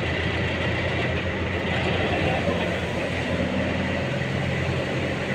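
Engine of heavy construction machinery running steadily, a continuous low drone with an even pitch.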